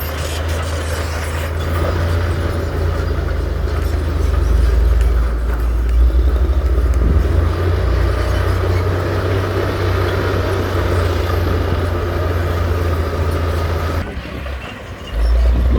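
Heavy diesel engine of earthmoving machinery running under load with a deep, steady drone. It dips sharply near the end and picks back up about a second later.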